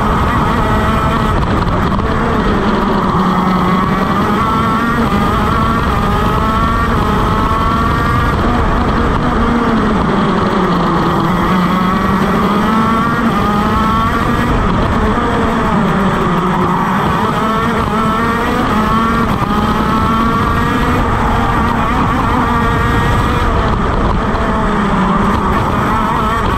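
KZ shifter kart's 125cc two-stroke engine at racing speed, heard from the driver's seat, its pitch climbing in short sweeps through the gears and dropping away as the kart slows, over and over.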